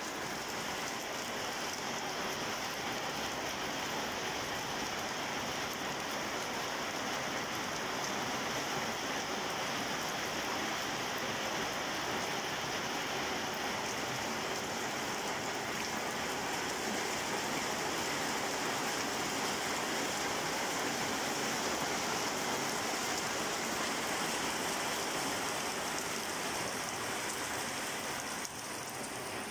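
Rain falling steadily on wet brick paving and garden plants, an even patter with no break; it gets a little quieter near the end.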